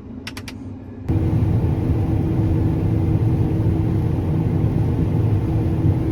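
A vehicle engine running with a low hum. Just after the start there are three quick clicks. About a second in, the sound cuts abruptly to a much louder, steady low engine rumble with a constant hum tone.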